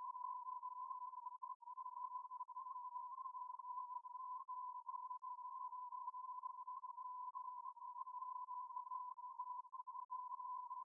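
Steady single-pitch electronic test beep playing continuously, with a few brief flickers in level. It is the test tone for a destructive-interference demonstration, meant to cancel out when two earpieces playing it are brought together at the ear.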